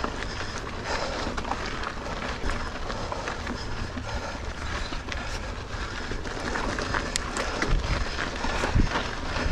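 Mountain bike ridden up a steep dirt singletrack climb: a steady rustle of tyres and riding noise with scattered small clicks and rattles, and a couple of low thumps near the end.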